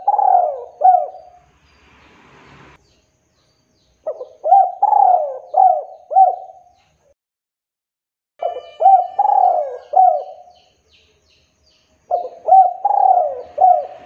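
Male spotted dove cooing: short phrases of about four coos each, repeated roughly every four seconds.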